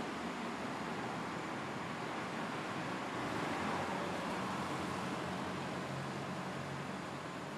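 Steady street traffic noise, with a vehicle's engine hum passing a little louder around the middle.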